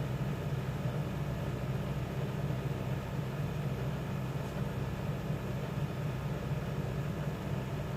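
Steady low mechanical hum, even and unchanging.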